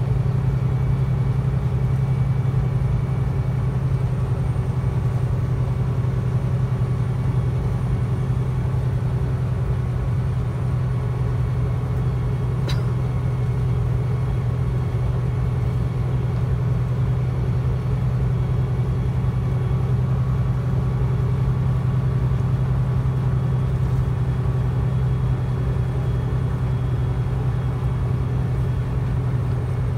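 Engine of a high-cabbed vehicle, likely a truck, running steadily as it rolls slowly along, heard from inside the cab as an even low drone. A single brief click comes about halfway through.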